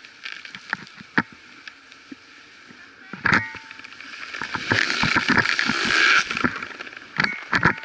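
Skis scraping and hissing over packed snow, swelling to a loud rush about five to six seconds in, with sharp clicks and knocks of ski gear scattered throughout.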